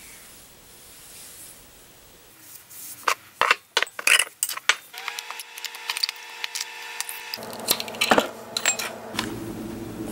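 Glass and jar clinking and knocking on a stone countertop as pickle slices are handled in a drinking glass: a quick, irregular run of clinks starting a couple of seconds in.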